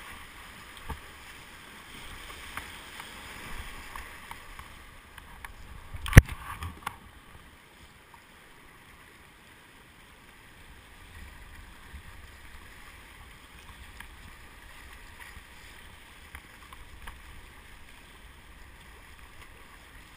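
River rapids rushing and splashing around a kayak, with low wind rumble on the microphone. A single loud, sharp knock about six seconds in, and the rush eases a little after about seven seconds.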